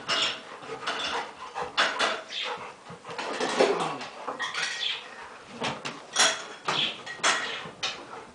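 Puppies playing and scuffling: a run of irregular taps, knocks and scrapes, with small dog noises mixed in.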